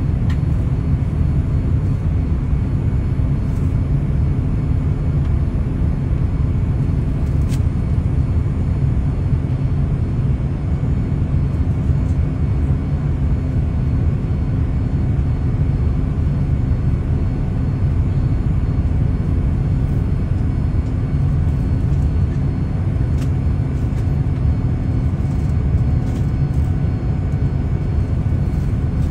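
Boeing 787-9 cabin noise in flight: a steady, deep rumble of airflow and engines heard from inside the cabin.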